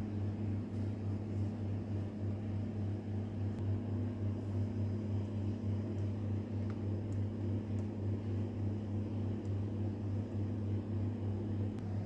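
A steady low electrical hum, even in pitch and level.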